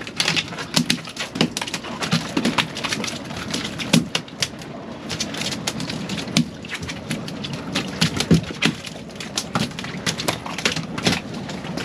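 An irregular clatter of sharp knocks and clicks, several a second, over a steady background of noise.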